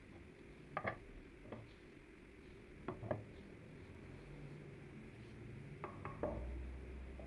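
Hard objects clinking and knocking lightly on a hard surface, in twos and threes spread over several seconds, with a low hum that swells in the last second or so.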